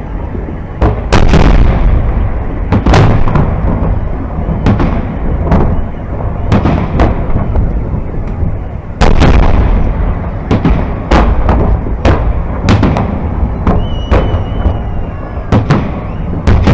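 Aerial firework shells of a large festive salute bursting overhead: a rapid, irregular run of booms over a constant deep rumble. Two of the booms, about a second in and about halfway through, are loudest and echo away.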